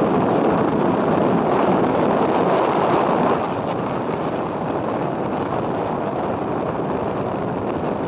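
Rushing wind on the microphone mixed with vehicle and road noise while moving along a gravel road, as a steady roar that eases a little about three and a half seconds in.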